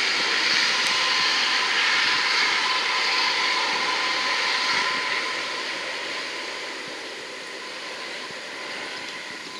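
Lockheed P-3B Orion's four Allison T56 turboprop engines running as the aircraft taxis and turns onto the runway: a steady propeller-turbine whine with a thin steady tone in it. The sound grows fainter over the last few seconds as the aircraft turns away.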